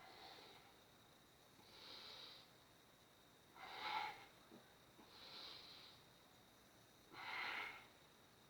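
A person's breathing, slow and even, with a soft breath roughly every one and a half to two seconds and two louder, fuller breaths about four and seven and a half seconds in.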